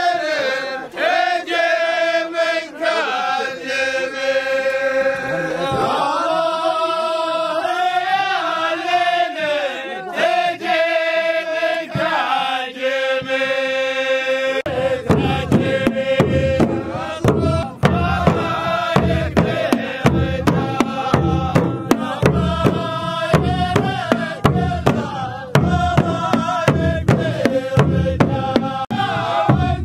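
A line of men chanting in unison in a Saudi ardah sword dance, with long held notes. About halfway through, large frame drums come in with a steady beat under the chant.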